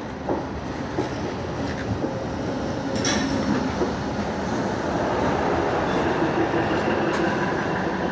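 Diesel-electric multiple unit (DEMU) train rolling past a platform: steady rumble with wheels clicking over the rail joints, growing louder from about halfway as the diesel power car comes by.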